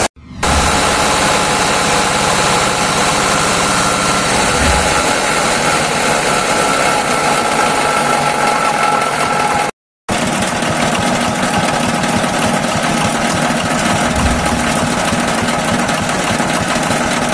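An engine running steadily, broken by a brief dropout a little past halfway.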